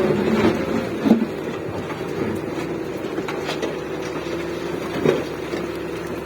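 Daewoo 170W wheeled excavator's diesel engine running steadily with a level droning note, with two short thuds, about a second in and about five seconds in.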